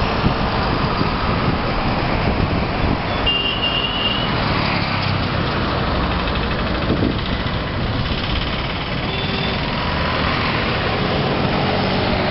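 Steady road and engine noise of city traffic, heard from a moving vehicle. A brief high-pitched tone sounds about three seconds in.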